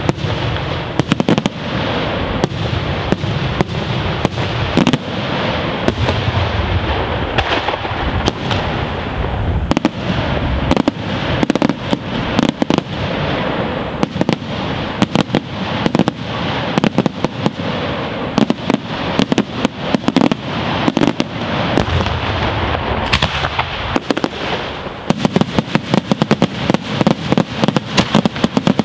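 Daytime aerial fireworks: shells bursting overhead in a continuous barrage of bangs over steady crackling. Near the end the bangs come in a quicker, denser run.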